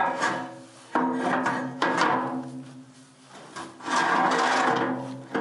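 Acoustic guitar music: strummed chords that ring on, with fresh strums about a second in, again just before two seconds, and near four seconds.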